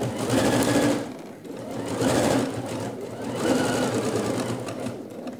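Computerized sewing machine stitching a dart in a shirt, running in fast continuous stitches. It eases off briefly about a second in, runs on again, and stops near the end.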